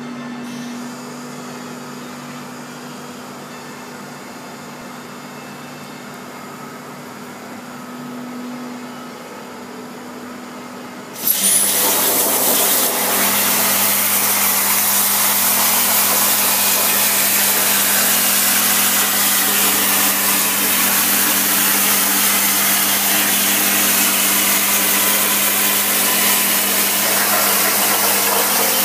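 CNC plasma cutter cutting 2 mm mild steel. A steady low hum with one constant tone runs for about eleven seconds. Then the plasma arc strikes suddenly and runs as a loud, steady hiss over a low hum.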